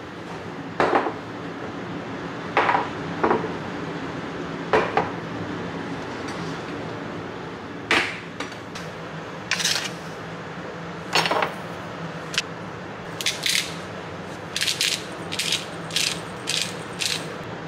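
Kitchenware clinking and knocking: a dozen or so sharp strikes of dishes and utensils, the later ones higher-pitched and closer together, over a steady low hum.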